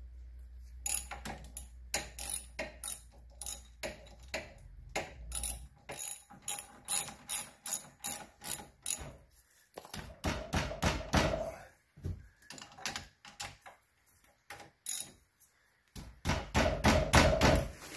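Hand tools clicking and clinking against a Kawasaki Brute Force 750's front brake caliper as it is refitted with new pads: a run of sharp metallic clicks about three a second, then two bursts of denser metal clatter.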